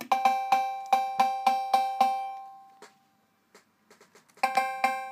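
Rebuilt Roland TR-808 analogue cowbell circuit playing through a small desktop speaker: its 540 Hz and 800 Hz square-wave oscillators are mixed, shaped by the envelope and passed through the bandpass filter. It plays a quick rhythmic run of about eight hits in two seconds, the last ringing out, then after a short gap with a few faint clicks the pattern starts again near the end.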